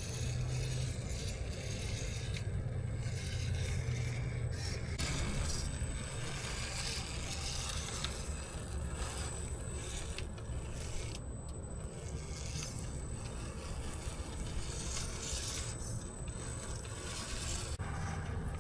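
Axial Capra RC trail crawler driving over wet ground: its electric motor and drivetrain hum steadily underneath, while the noise of the tyres scraping over the surface rises and falls every few seconds.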